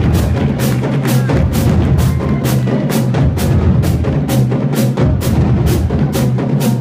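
High school marching drumline playing a steady beat: sharp snare and tenor drum strokes a few times a second over pitched bass drum tones.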